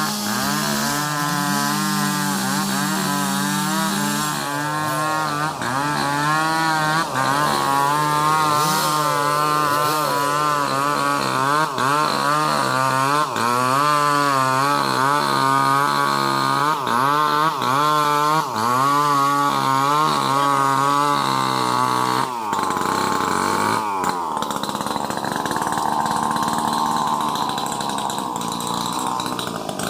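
Two chainsaws running together, cutting through sengon (albizia) wood, their engine pitch wavering up and down as they load and recover. About three quarters of the way in the sound shifts to a different, higher pattern.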